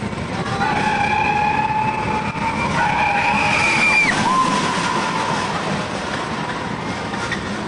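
Arrow looping steel roller coaster train running past on its track: a rumble under several steady high-pitched squealing tones. The squeal starts about half a second in, bends in pitch around four seconds as the train passes, and fades by about five and a half seconds.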